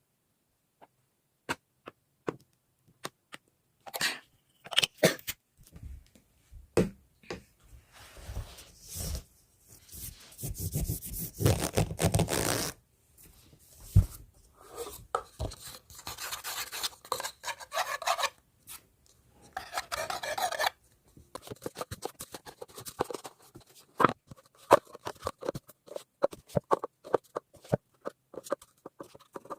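A small animal scratching and gnawing on a hard surface: irregular clicks and several longer stretches of rasping in the first two-thirds, then quick, irregular clicking toward the end.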